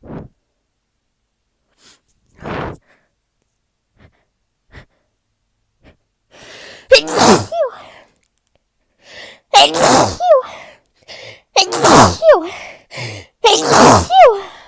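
A person sneezing from allergies: a few short, quiet breaths, then four loud sneezes in a row from about seven seconds in, each with a quick breath drawn in just before it.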